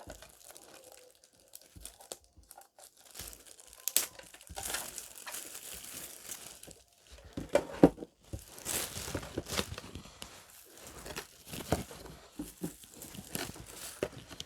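Paper wrapping being torn off and crumpled by hand, in irregular crackles and rustles.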